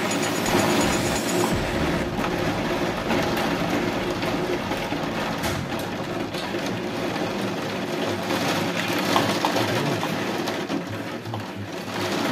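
Thunderstorm wind and heavy rain: a dense, steady roar of gusting wind through thrashing trees with rain pouring down.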